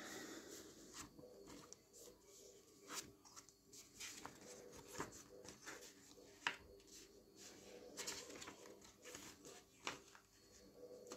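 Faint paper rustling and soft irregular clicks of a glossy CD booklet's pages being handled and turned by hand.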